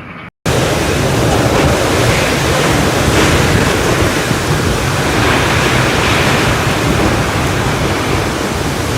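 Strong wind blowing hard over the microphone: a loud, even rushing noise with a heavy low rumble of microphone wind buffet. It starts abruptly just after a split-second gap.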